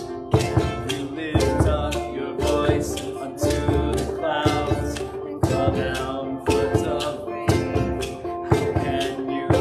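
Acoustic string band playing a song: banjo, mandolin, small guitar or ukulele, and upright bass, with a drum kit striking a steady beat about once a second.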